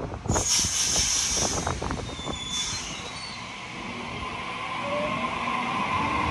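A Sydney Trains Waratah double-deck electric train pulls out of the station. Near the start there is a hiss of air, then the traction motors whine, several tones rising in pitch together as the train gathers speed.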